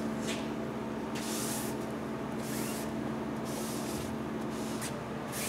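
Cloth rag wiping surplus glue off fabric on an aircraft aileron: a series of short swishing rubbing strokes, about one a second, over a steady low hum.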